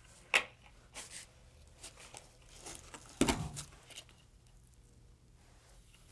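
Cord being pulled through the slits of a cardboard abacus frame while beads are handled: scattered rustling and scraping, with a sharp click a third of a second in and a louder knock and scrape a little after three seconds.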